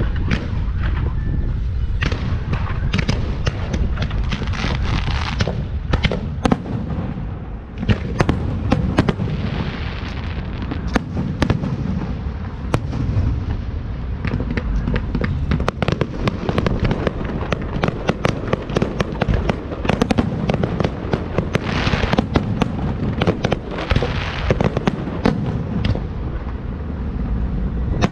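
Fireworks going off continuously: a dense crackle with many sharp bangs over a deep rumble.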